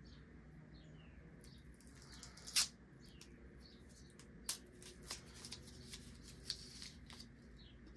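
Small cardboard-and-plastic battery packaging being handled and its wrapper peeled off: light rustling and crinkling, with one sharp click about two and a half seconds in and a few smaller clicks later.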